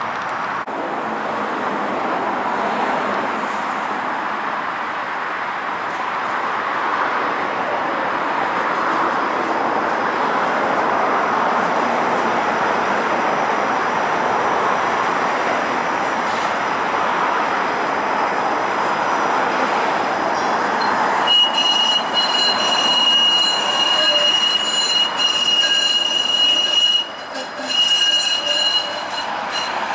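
Toronto Flexity Outlook streetcar rolling on its track with a steady rumble. About two-thirds of the way through, its steel wheels set up a loud, high, steady squeal on the curve, which drops out briefly a couple of times near the end.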